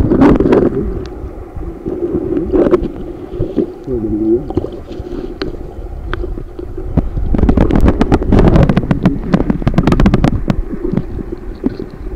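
Muffled rush of river water heard underwater, with a short gurgle about four seconds in. From about seven to ten seconds in comes a dense run of clicks and knocks as a hand works among the stones on the riverbed.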